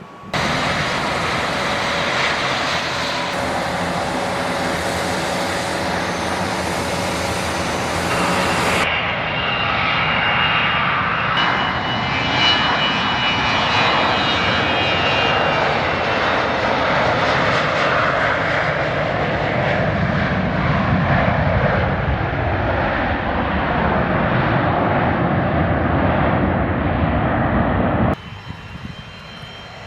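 Airliner engines running loud and close, with steady whining tones over a dense rushing noise, and a low tone falling in pitch as the aircraft passes. The sound changes abruptly about nine seconds in and drops away sharply near the end.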